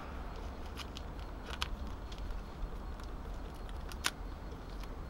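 A duct-tape pouch being handled and its flap opened: a few sharp crinkling clicks of the tape, about three of them spread through, over a steady low rumble.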